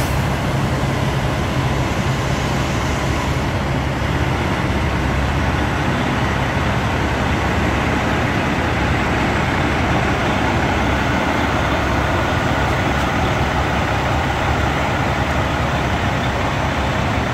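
Heavy truck engine running steadily, mixed with road noise.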